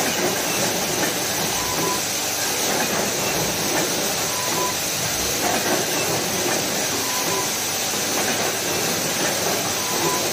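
Automatic adhesive-hook assembly machine running: a steady, dense mechanical clatter and hiss from its parts feeder and air-driven mechanisms.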